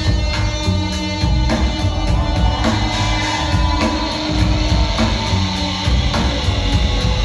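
Live rock band playing an instrumental stretch between vocal lines: drums and heavy bass with guitar, over a steady cymbal beat of about four strokes a second.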